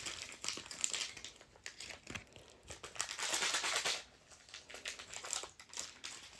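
Plastic instant-ramen seasoning and sauce packets crinkling and crackling as they are handled and opened, with a denser stretch of crackling about three seconds in.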